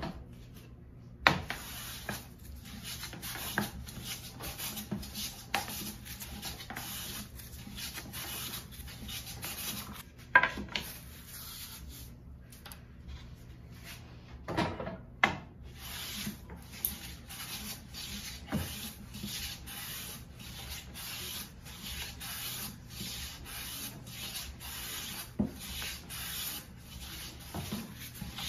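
Metal bench plane taking quick repeated strokes along a pine board, each stroke a short rasping swish. There is a brief pause about twelve seconds in, and a few sharper knocks of the plane on the wood.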